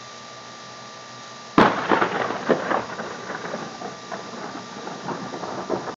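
Thunderclap from a lightning strike about 1000 feet away: a sudden sharp crack about one and a half seconds in, then crackling, rolling thunder that carries on over a steady hiss.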